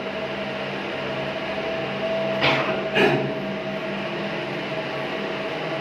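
Swimming-pool circulation pump running with a steady hum. Two short knocks come about two and a half and three seconds in.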